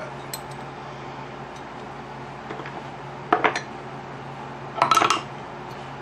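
Small metal pen-kit parts clinking as they are handled and set down on the bench: a few light clicks, then two short clatters of metallic clinks about three and five seconds in.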